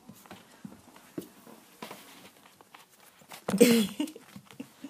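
A Tibetan Terrier puppy mouthing and nosing a phone right at the microphone: scattered light clicks and rubbing, with a brief loud pitched sound and scuffle about three and a half seconds in.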